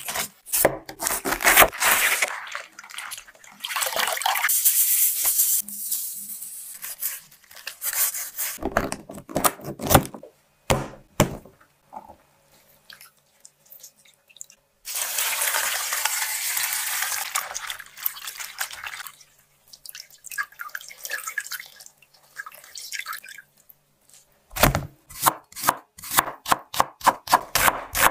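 Kitchen prep for kimchi: napa cabbage leaves rustling and crinkling as they are handled, then water splashing and dripping as salt brine is squeezed out of the softened cabbage. Near the end, a cleaver slices through an onion onto a wooden cutting board in a fast run of about five chops a second.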